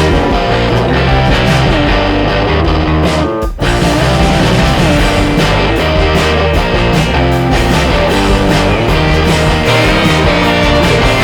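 Background rock music with guitar, dense and steady, with a brief break about three and a half seconds in.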